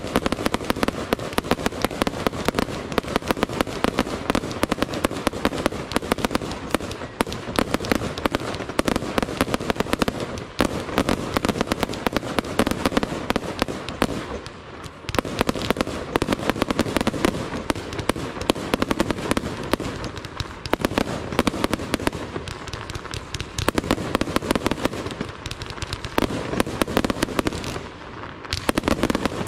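Aerial fireworks bursting in a dense, rapid barrage of bangs and crackle. It eases briefly about halfway through and again near the end.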